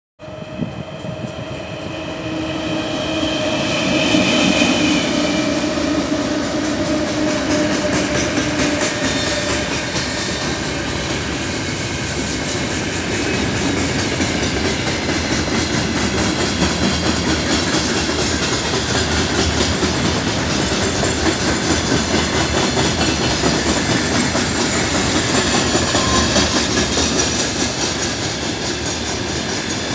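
A 3ES5K 'Ermak' electric freight locomotive passing at speed, with a few steady tones in the first several seconds as it approaches and goes by, followed by the continuous rumble and clickety-clack of a long train of gondola wagons rolling past.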